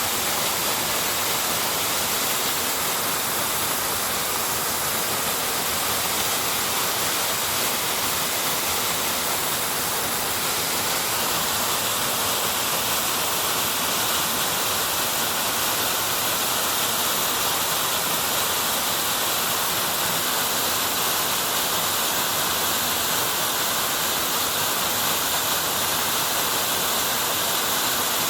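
Urlătoarea waterfall rushing: a steady, unbroken hiss and wash of falling water that stays even throughout.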